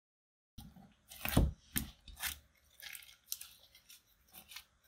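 Sticky slime mixed with white eyeshadow being pressed and kneaded by hand in a glass dish: a string of wet squelches and crackly pops that starts about half a second in, the loudest about a second in.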